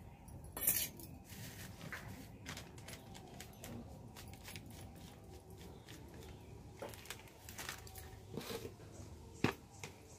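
A steel bowl set down on a concrete floor with a sharp metallic clink, then small clicks and the crinkle of a plastic spice packet being torn open and handled, with another sharp click near the end.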